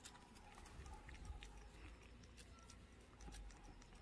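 A cat licking a lickable paste treat from a squeeze pouch: faint, quick, irregular wet clicks and smacks of its tongue.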